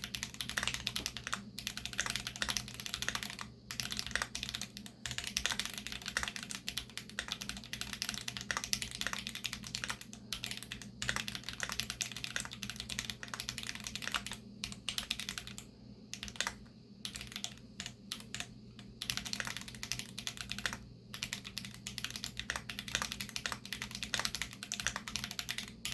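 Fast continuous typing on a Keychron Q2 mechanical keyboard with lubed Holy Panda tactile switches and Glorious GPBT PBT keycaps, a dense run of keystroke clicks with a few short pauses, the longest about two-thirds of the way through.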